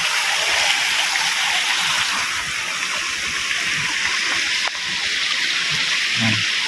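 Spring water pouring out of a hole in the rocky creek bank and running over stones: a steady rushing flow.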